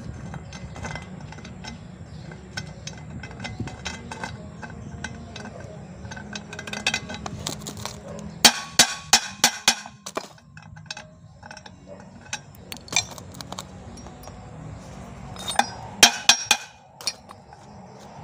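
Claw hammer striking the steel yoke of a Toyota Kijang propeller shaft to knock out the worn cross joint (universal joint): a quick run of about six sharp metal-on-metal taps about eight seconds in, and another run of four or five near the end, with lighter clinks of loose parts between.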